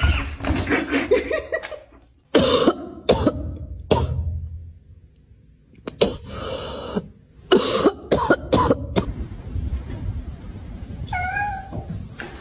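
Coughing: short, sharp coughs in separate bursts, several in quick succession about eight seconds in, with a short pitched vocal sound near the end.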